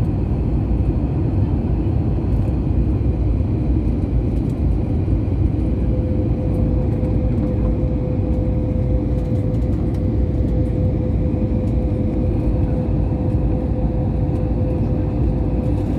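Steady roar of a jet airliner's engines and airflow heard from inside the passenger cabin as it descends on approach. About six seconds in, a steady hum joins the roar and holds.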